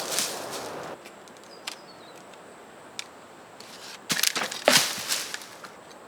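Rustling and crackling of dry leaves and sticks being handled or stepped on, loudest in a cluster about four to five seconds in, after a couple of light clicks. A faint steady high-pitched whine sits underneath.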